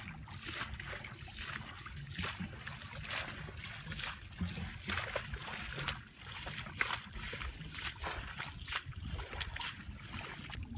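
Irregular splashing and sloshing in shallow muddy water as hands grope for fish, about one or two splashes a second over a steady low rumble.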